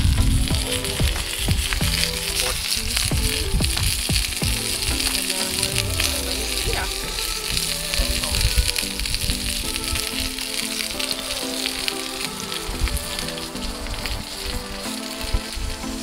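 Pork chops and mushroom caps sizzling in pork fat on a cast iron grill pan over a campfire: a steady frying hiss.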